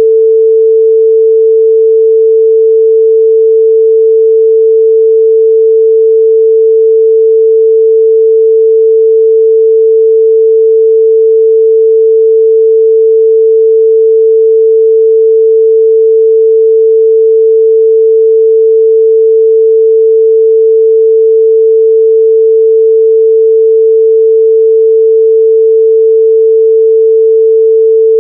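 A pure 445 Hz sine-wave test tone, held at one steady pitch and level with no harmonics.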